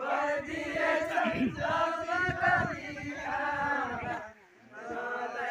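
A group of dancers singing a Nepali Deuda folk song together in chorus, with a short break about four seconds in before the voices come back.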